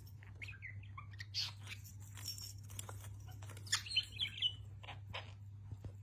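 Budgerigar giving short chirps and chattering calls, the loudest cluster about four seconds in.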